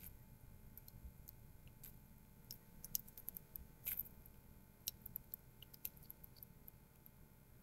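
Near silence with faint, scattered small clicks and ticks, at irregular intervals and a little more frequent about three to five seconds in.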